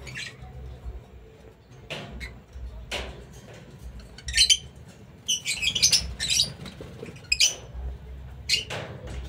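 Fischer's lovebirds giving sharp, high-pitched chirps and squeaks, a rapid cluster in the middle and single calls near the end.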